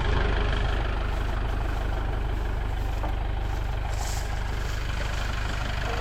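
Engine of a work machine idling steadily with a low, even throb. A short high-pitched noise sits over it about four seconds in.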